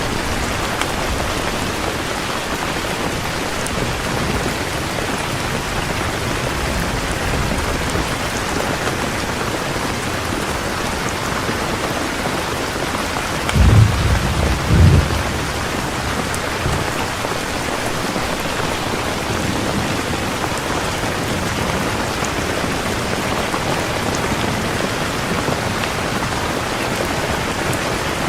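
Heavy rain falling steadily. About halfway through, a short low rumble of thunder comes in two or three quick swells, louder than the rain.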